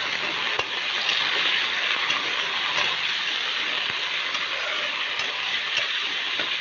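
Raw chicken pieces sizzling steadily in hot oil with fried onions in a wok (kadai), stirred with a metal spatula that scrapes and ticks against the pan now and then.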